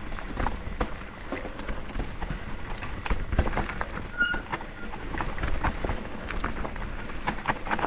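Mountain bike riding fast down a dry dirt trail: tyres rumbling over the dirt with an irregular clatter of knocks and rattles from the bike as it goes over bumps and roots.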